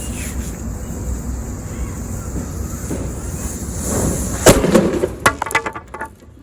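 Steady hiss with a low rumble, then a sharp firecracker bang a little past the middle, followed by a quick run of smaller pops that dies away.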